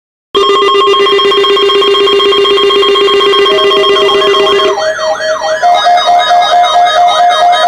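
Synthesized electronic tones start suddenly a moment in: a loud, buzzy held chord for about four seconds, then a steady note with quickly wavering, warbling tones above it.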